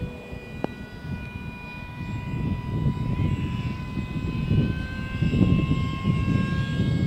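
Radio-controlled model autogyro's motor and propeller running with a steady whine, getting louder from about two seconds in as it flies low past.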